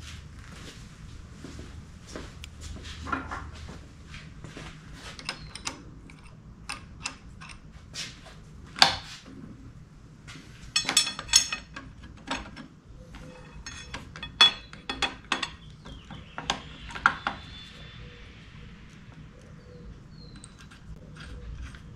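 Steel parts of a Di-Acro No. 2 hand bender clinking and knocking as the bender is set up, with its clamp block, roller arm and a half-inch steel bar being fitted by hand. Irregular metal clanks throughout, with a few louder clusters of knocks around the middle.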